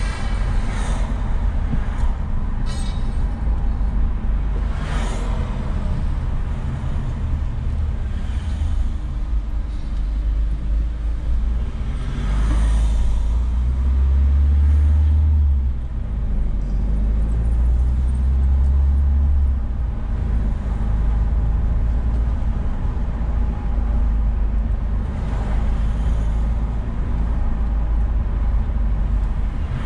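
Car driving along a city street in traffic: a steady low rumble of road and engine noise, louder for a few seconds around the middle, with a few other vehicles whooshing past.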